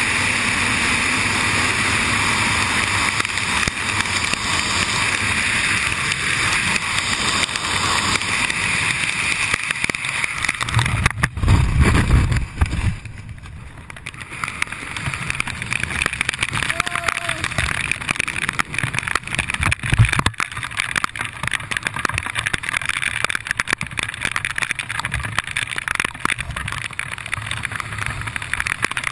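Wind rushing hard over a helmet-mounted action camera in wingsuit freefall. Just under halfway through there is a loud low buffeting as the parachute opens. After that the wind drops to a quieter, uneven flutter under canopy, with one sharp thump later on.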